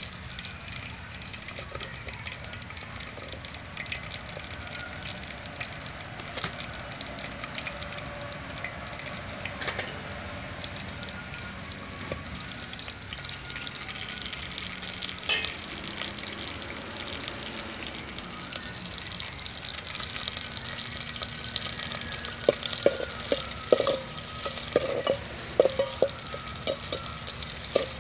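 Green chillies and other pieces frying in hot oil in an aluminium pot, a steady hissing sizzle that starts suddenly as they drop in: the tempering stage of a curry. In the last third, a steel ladle stirring and knocking against the pot.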